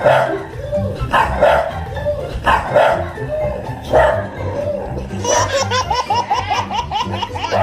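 A dog barking, four loud barks roughly a second and a half apart, then a fast run of short high-pitched yips or chirps in the second half, over background music with a steady beat.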